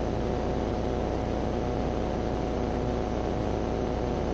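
Steady drone of a CTSW light sport aircraft in level cruise, its Rotax 912 engine and propeller running at constant power, with a faint steady tone through it.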